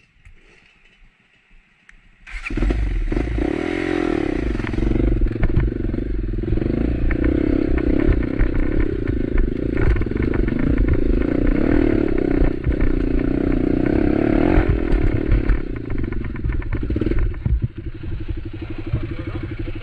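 Motorcycle engine running under load, its note rising and falling, with many knocks and rattles as the bike goes over a rough, rocky trail. It starts suddenly about two seconds in after a faint stretch, and settles to a steadier, lower-revving run near the end.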